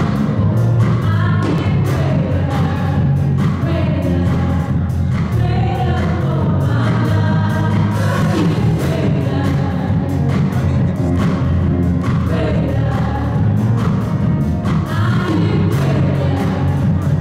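Gospel music: several voices singing together over a band with a strong bass line and a steady drum beat.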